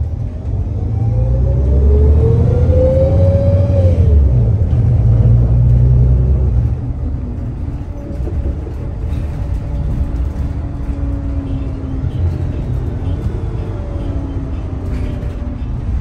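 Drivetrain of a New Flyer XN40 city bus with a Voith automatic transmission, heard from inside over a low rumble. For the first few seconds it pulls away with a rising whine that drops at a gear change about four seconds in. After that the bus runs more quietly with a slow, falling whistle from the Voith transmission, the sound it makes when the bus decelerates.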